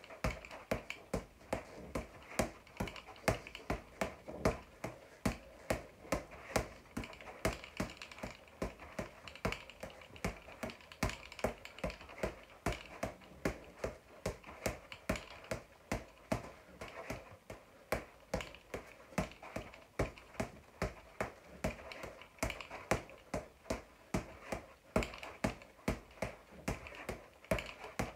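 Boxing gloves striking a floor-to-ceiling ball in quick combinations: a run of sharp smacks, about two or three a second.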